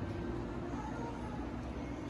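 Steady low hum of room noise with no distinct events.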